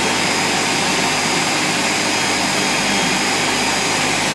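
Ninja Professional 1500-watt countertop blender running steadily and loudly, blending a thick mix of onions, peppers and tinned tomatoes with no water added. The motor cuts off suddenly at the very end.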